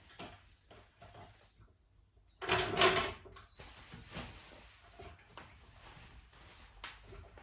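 Handling noises as a jack is set up under a car door: a loud scraping creak lasting about a second, starting about two and a half seconds in, with light knocks and clicks around it.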